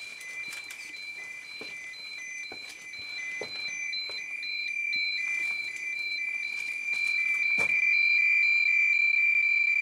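Handheld radiation dosimeters, among them a Soviet Pripyat, sounding their alarms: a steady high-pitched tone together with a fast pulsing beep, over scattered sharp clicks. The alarm signals a dose rate above the meters' threshold. It gets louder about seven seconds in.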